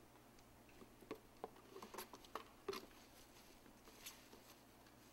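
Near silence with a few faint, light taps and clicks: handling noise from a motor and switch assembly being packed into a cardboard shipping box.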